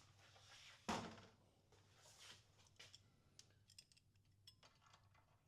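Faint metallic clinks and scrapes as the UTV's sway bar link is worked loose and slid aside, with one sharp knock about a second in and small ticks after it.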